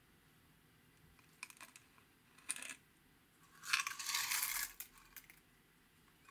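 Small plastic jar being opened with a few light clicks, then star-shaped plastic confetti shaken out of it in a dense rattle lasting about a second and a half.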